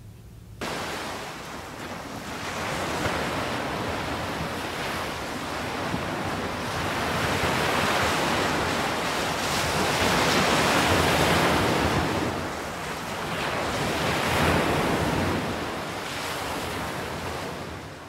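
Ocean surf breaking on a shore, starting abruptly about half a second in and swelling and easing off several times before fading near the end.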